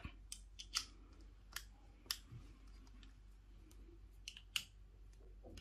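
Faint, scattered small clicks of an Allen key and hard plastic suitcase-wheel parts being handled as the wheel's axle bolt is loosened slightly, because it was done up too tight.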